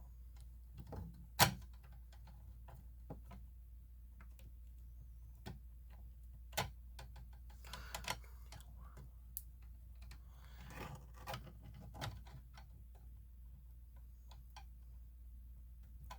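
Irregular small clicks and knocks of handling, with one sharp click about a second and a half in, over a faint steady low hum; no alarm horn is sounding.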